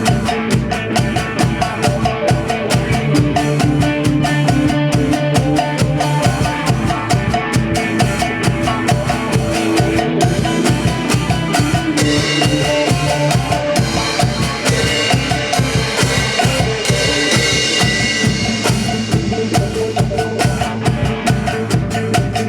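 Instrumental passage of a band's song: a drum kit keeps a steady beat under bass and held pitched instruments, with no singing. The sound grows brighter about halfway through.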